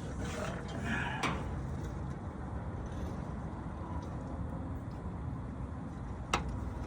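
Metal parts of a GM 10-bolt differential being handled: a short stretch of scraping early, and two sharp metallic clicks, about a second in and near the end, over a steady low hum.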